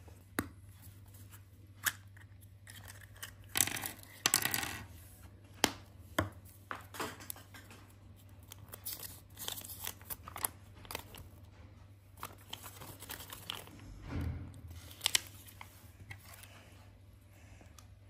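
Hands unpacking a Kinder Surprise toy: clicks of the plastic capsule and of small plastic toy parts being handled and fitted together, with a burst of crinkling and tearing of the wrapping and paper leaflet about four seconds in and a dull thump near the end.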